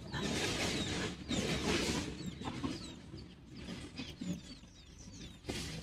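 Chickens clucking and small birds chirping, over a steady background hiss.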